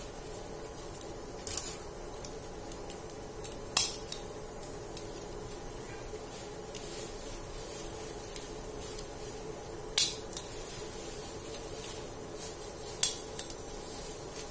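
Several sharp clicks of a small stapler snapping shut, a few seconds apart, fastening banana-leaf parcels of fish, with light leaf rustling over a steady background hum.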